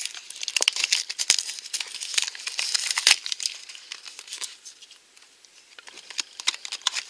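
Clear plastic shrink wrap crinkling and crackling as it is picked at and peeled off a small cardboard box. There is a dense run of crackles for about three seconds, a lull, then more crackling near the end.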